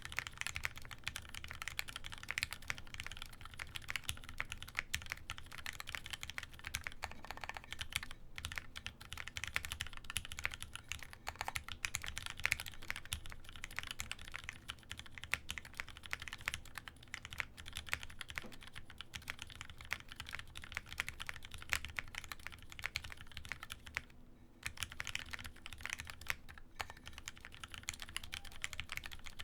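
Continuous typing on a Baka60 60% custom mechanical keyboard with Gateron Yellow linear switches lubed with Krytox 205g0: a steady stream of keystrokes, with a brief pause about 24 seconds in.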